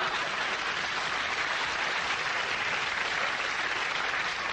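Studio audience applauding steadily after a punchline, with no break.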